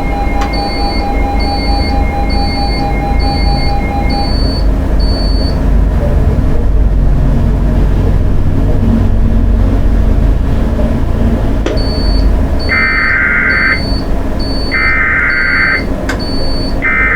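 Emergency Alert System SAME header: three harsh digital data bursts, each about a second long and a second apart, starting near the end. They sound over a loud low rumble. Earlier, a steady electronic tone stops about four seconds in, and short high beeps repeat about once a second in two runs.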